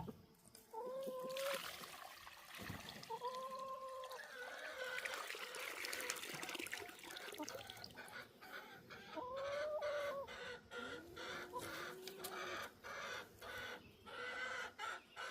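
Chickens clucking and giving several drawn-out calls, with quick runs of repeated clucks near the end. A hiss of water being poured runs under the first half.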